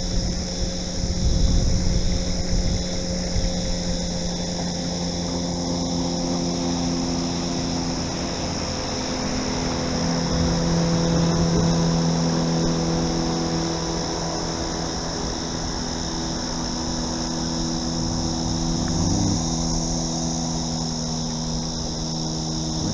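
A boat's small motor hums steadily, its pitch stepping up or down a few times, over a constant high buzz of insects.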